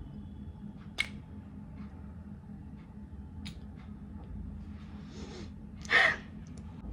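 Carlton London Muse perfume spray bottle in use: a sharp click about a second in, then short hissing sprays at about five and six seconds, the second louder.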